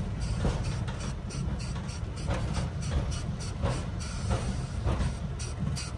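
Cabin noise inside an Antonov An-2 biplane: the steady low drone of its nine-cylinder radial engine, with light irregular rattling, as the plane comes in to land.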